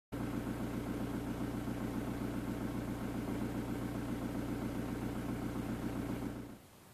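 VW T4 Transporter's 1.9 turbodiesel four-cylinder engine idling steadily, cutting off near the end.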